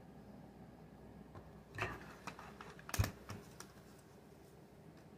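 A few scattered clicks and taps of ring-light parts being handled and fitted together during assembly, with one louder knock about three seconds in.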